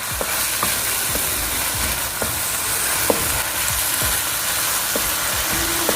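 Spiced ground beef frying and sizzling in oil while it is stirred, with a cooking utensil clicking against the pan every so often.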